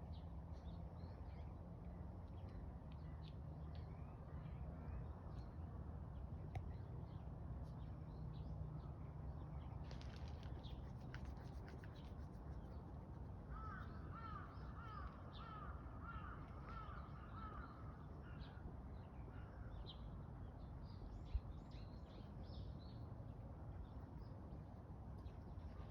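A bird gives a quick run of about nine repeated calls, roughly two a second, about halfway through, over a steady low rumble with faint chirps of small birds scattered throughout.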